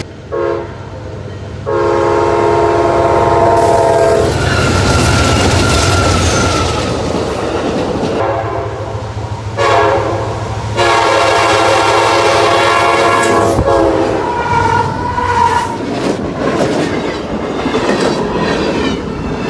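Freight locomotive air horn sounding a chord of several notes in two long blasts, about two seconds in and again around the middle, over the rumble and clickety-clack of freight cars rolling past.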